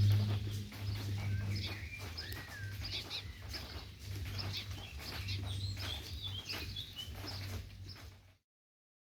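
Small birds chirping and calling in short notes and quick up-and-down whistles, over a steady low hum. The sound cuts off abruptly about eight seconds in.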